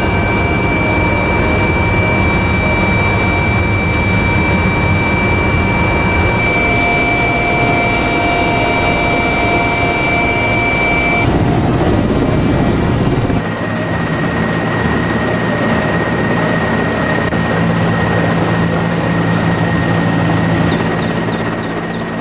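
Military helicopter turbine engines and rotors running steadily. About two-thirds of the way through the sound changes abruptly to a second helicopter recording with a regular rotor beat.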